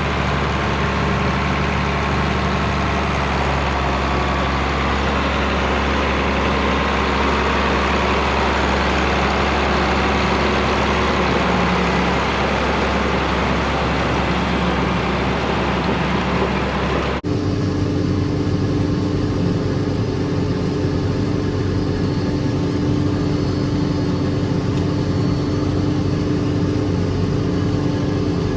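Tractor engine running steadily. Well past halfway the sound cuts abruptly to another steady engine note with a different pitch.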